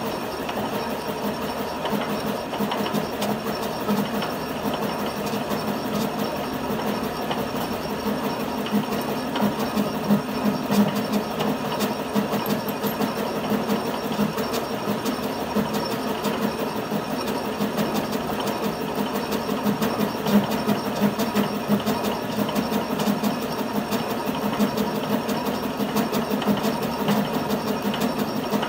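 Metal lathe running steadily with a thread tap spinning in its chuck, hobbing teeth into a gear blank that turns against it on the toolpost: a continuous machine hum with a fast, even rattle of metal cutting and gearing.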